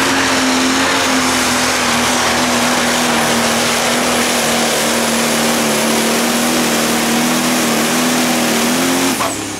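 John Deere 8410 Pro Stock pulling tractor's turbocharged diesel engine running flat out with a loud, steady note while it drags a weight-transfer sled down the track. The note rises slightly just before the end, then drops away sharply about nine seconds in as the pull finishes.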